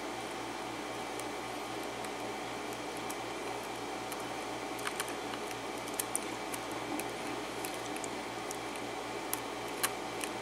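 Faint, scattered metallic clicks of a thin lock pick working the pins of an Arrow pin-tumbler lock cylinder with a Schlage keyway, under tension from a wrench, over a steady background hum.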